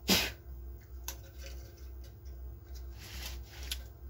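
Hands handling an emptied 12-inch speaker frame on a workbench: a sharp knock just after the start, then a few lighter clicks and rustles.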